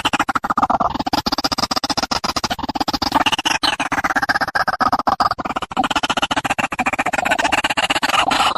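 Background music with a fast, even pulse.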